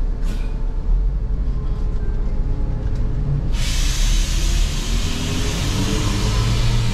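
Coach bus engine running with a steady low rumble as the bus pulls away. About halfway through, a loud steady hiss starts suddenly over it.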